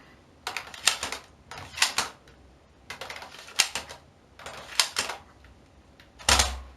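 Plastic priming slides of NERF N-Strike Elite Split Strike blasters being pulled back and pushed home, clacking in about five quick clusters of clicks. The heaviest clatter comes about six seconds in.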